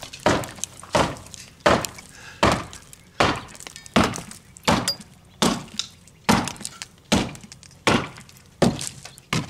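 Repeated hammer blows at a steady pace, about one every three-quarters of a second, knocking a rotted wooden basement window frame out of its masonry opening.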